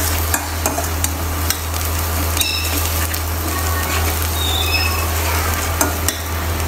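Minced garlic sizzling in hot oil in a stainless steel frying pan, stirred with a spatula that clicks and scrapes against the pan now and then. A steady low hum runs underneath.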